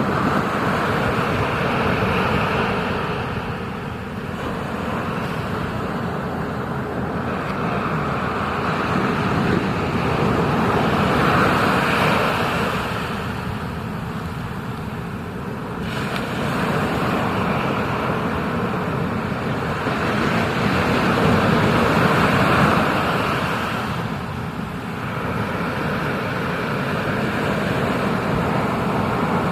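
Ocean surf and rushing water heard close up in the water, a steady roar that swells and eases about every ten seconds.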